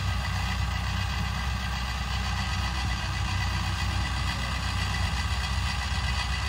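Small engine of a tracked rice-sack carrier idling steadily, a constant low hum.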